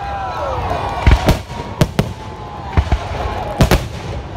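Fireworks display: aerial shells bursting with sharp bangs, about six in four seconds, two of them coming as quick pairs.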